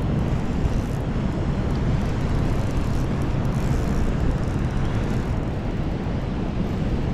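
Steady, low rushing noise of a high, fast-flowing river current around wading legs.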